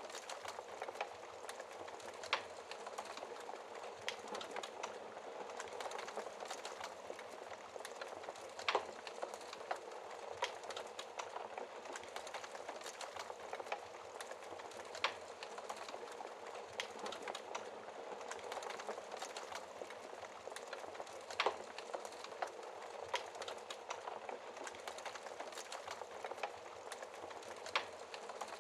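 Wood fire crackling in a fireplace: a steady hiss of small crackles, with a sharper pop about every six seconds, five in all.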